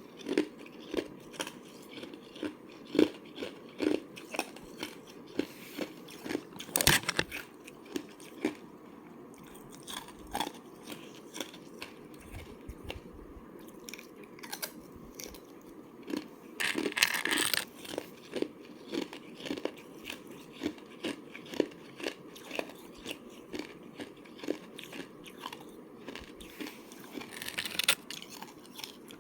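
A person biting and chewing a thin slab of ice: short, sharp crunches about two or three a second, with a few louder bursts of crunching.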